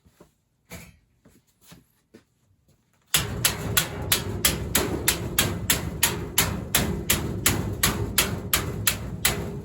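Rapid, evenly spaced hammer strikes, about three to four a second, starting suddenly about three seconds in over a steady background noise.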